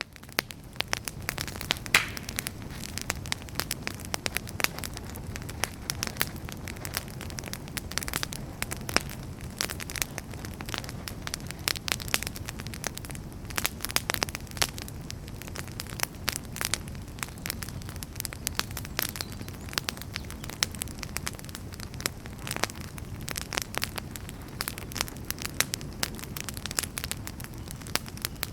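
Outdoor campfire crackling: dense, irregular snaps and pops of burning wood over a steady low rush, with one sharper pop about two seconds in the loudest.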